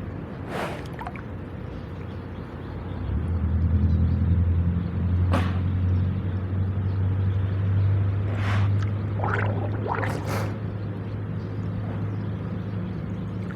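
Water splashing in short bursts as water buffalo bathe, with a low, steady motor hum that comes in about three seconds in and becomes the loudest sound.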